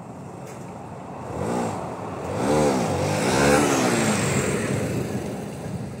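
Motorcycle riding up and past close by, its engine revved in several short rising-and-falling surges, loudest about two and a half to three and a half seconds in, then fading away.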